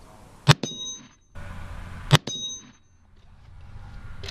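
Two shots from a .22-250 rifle, under two seconds apart, each followed at once by a brief high metallic ring as the bullet hits a 10-inch AR-500 steel gong.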